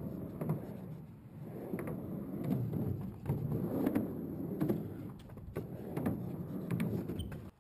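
Skateboard wheels rumbling as the board rolls back and forth across a small skatepark ramp, swelling and fading with each pass, with scattered light clacks from the board.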